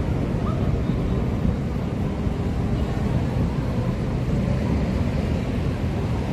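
Steady low rumble of city traffic mixed with wind buffeting the microphone.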